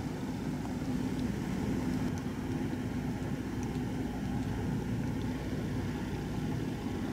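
Steady low engine drone with a constant hum, from the cement carrier's diesel as it passes.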